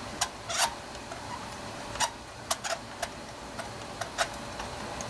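Ratchet wrench on a 5/8 spark plug socket clicking in short, uneven runs of sharp clicks while a spark plug is worked loose.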